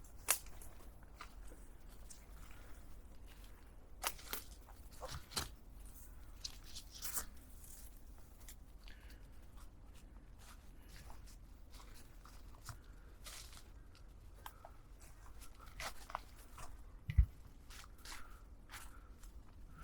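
Footsteps crunching and rustling on a mountain path: irregular soft crackles, with one louder low thump late on.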